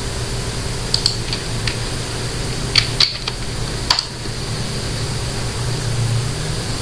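A few computer keyboard keystrokes, then a single mouse click about four seconds in, over a steady low hum and hiss.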